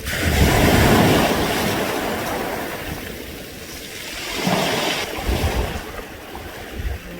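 Waves washing up a round-pebble beach, the smooth stones rattling in the surf with a hissing rush. One big surge comes at the start and fades over about three seconds, then a smaller one follows about four and a half seconds in.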